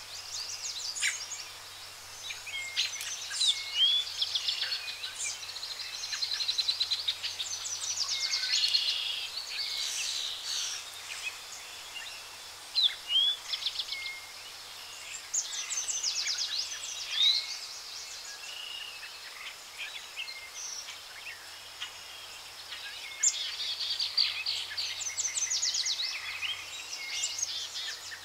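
Birds calling in woodland, several overlapping, with short rising chirps and quick trills repeating throughout.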